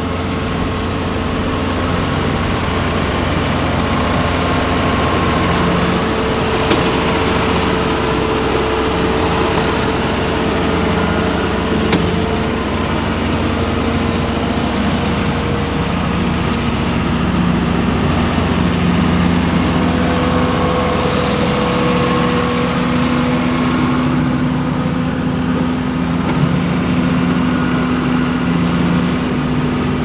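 New Holland T7 tractor's diesel engine running steadily as it pulls a five-furrow plough, with small shifts in pitch.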